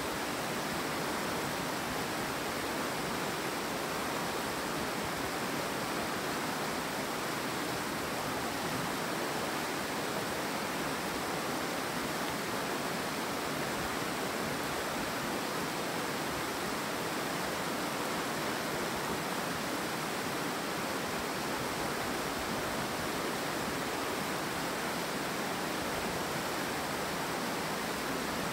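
Steady rushing of river water, an even, unchanging hiss.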